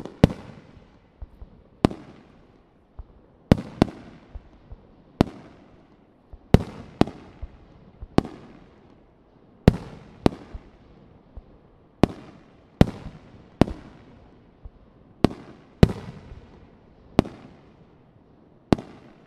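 Aerial firework shells bursting: a string of sharp bangs, roughly one a second at uneven intervals, each followed by a rumbling echo that dies away.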